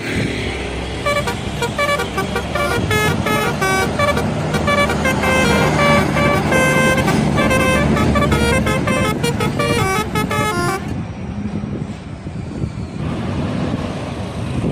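Bus telolet horn playing a quick tune of short notes that step up and down in pitch, over the rumble of the bus engine. The tune stops about eleven seconds in, leaving engine and road noise.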